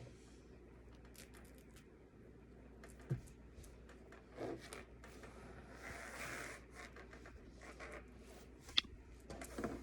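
Small handling noises as a plastic action figure's cloth shirt is pulled off: faint rustling and scraping, a longer rustle about six seconds in, and a couple of sharp clicks.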